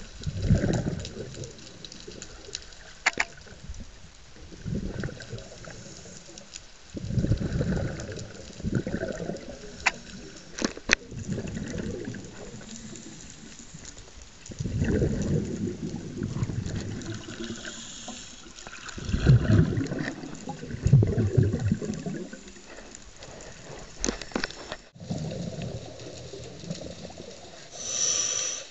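Underwater water noise heard through a submerged camera: sloshing and bubbling that swells every few seconds over a steady hiss, with a few sharp knocks.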